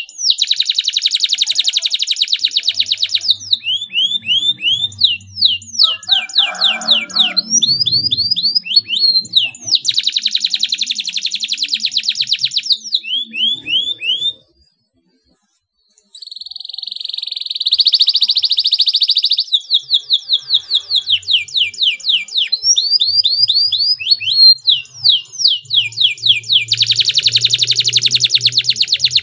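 Canary singing a long song of fast trills and tight rolls: high notes repeated in quick runs, with dense buzzing rolls now and then. The song breaks off for about a second and a half about halfway through, then carries on.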